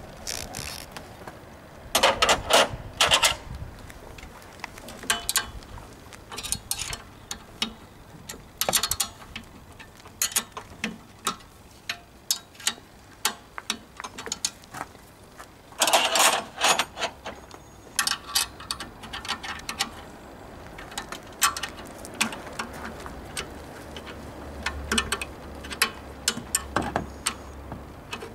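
Irregular metallic clicks and clanks of a wrench, bolts and a replacement alternator being fitted into a Chevrolet S-10 Blazer's engine bay. Louder clattering bursts come about two seconds in and again around sixteen seconds.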